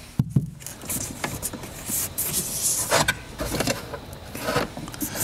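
Rustling and crinkling with scattered light knocks as a sheet of sound-deadening mat is handled and pressed into place inside a car's bare door shell.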